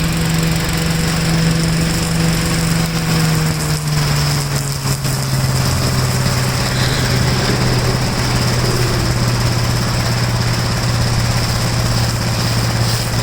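1969 Gravely Li walk-behind tractor's single-cylinder engine running steadily while mulching leaves; its note drops about four seconds in and then holds at a lower speed.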